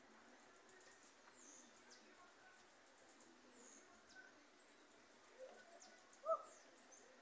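Faint outdoor ambience of birds: thin, high chirps falling in pitch come and go throughout, with one short, lower call about six seconds in that is the loudest sound.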